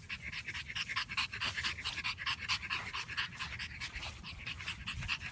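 French bulldog puppies panting hard and fast, several short breaths a second in a steady rhythm.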